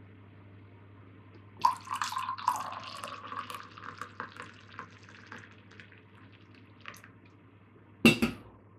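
Tea poured from a metal teapot into a ceramic mug: a splashing pour that starts about a second and a half in and thins to a trickle and scattered drips. About eight seconds in comes a sharp knock of something set down on the table, the loudest sound of the clip.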